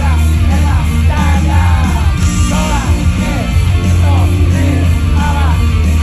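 Loud live idol-pop song over a PA system, heavy in bass, with voices singing and yelling along.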